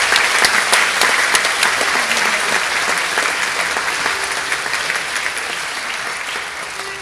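Audience applauding, a dense clatter of many hands clapping that slowly dies down toward the end.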